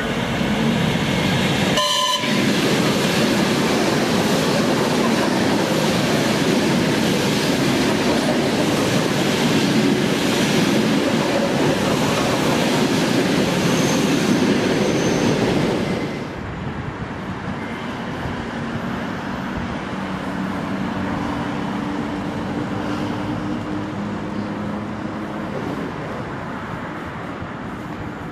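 A train passing close by, with loud rushing wheel-and-rail noise and a brief horn blast about two seconds in. About sixteen seconds in, the sound drops suddenly to a quieter, steady rumble of a train running.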